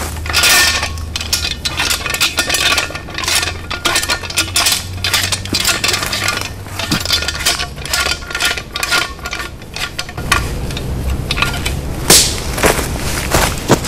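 Metal clicks and clinks of a folding entrenching shovel being handled and unfolded, with many sharp knocks scattered irregularly and a faint metallic ring in the first half.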